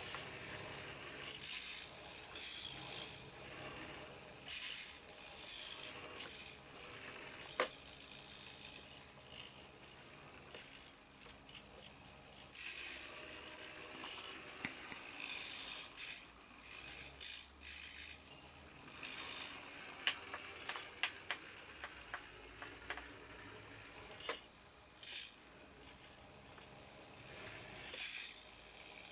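Tiny electric motors and gearboxes of 1:87 scale RC model trucks whirring in short, irregular bursts of a second or less as they are driven, with scattered small clicks and rattles.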